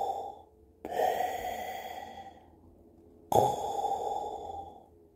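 A person imitating Darth Vader's mechanical breathing: slow, heavy, hissing breaths in and out, each about one and a half seconds long, with short pauses between them.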